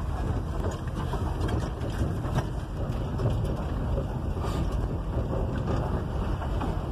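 Ford 360 big-block V8 running steadily, heard from inside the cab of a 1967 Ford truck.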